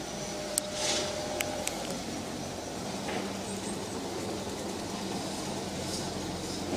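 Steady outdoor town background noise, a continuous distant rumble like traffic or trains, with a few light clicks and a brief hiss about a second in.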